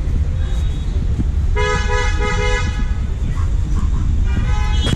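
Car horns honking in heavy traffic: one horn sounds three quick beeps about a second and a half in, and another horn sounds near the end, over a steady low rumble of traffic.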